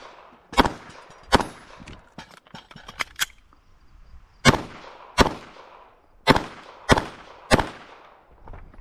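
Handgun shots fired during an IPSC stage. There are seven loud shots spaced about half a second to a second apart, each cut short with a brief echo tail. After the second shot comes a pause of about three seconds, with two fainter cracks in it.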